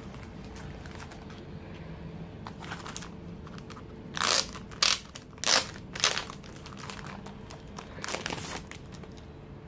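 Packaging being opened by hand: crinkling and crackling in a handful of short, loud bursts about four seconds in, and again near the end.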